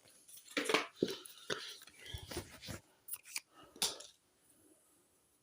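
Rustling and light clicks of cardboard packaging and accessories being handled while a speaker is unboxed, a handful of short bursts in the first four seconds, then it goes quiet.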